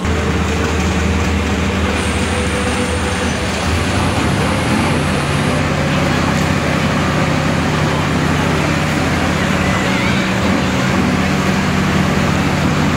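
T-55AM2 tank's V-55 twelve-cylinder diesel engine running steadily with a low, even hum, while its thermal smoke system turns injected fuel into a thick white smoke screen in the exhaust.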